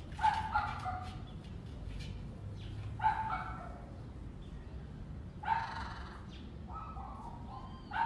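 A dog barking: a short bark or double bark every two to three seconds, with fainter barks in between.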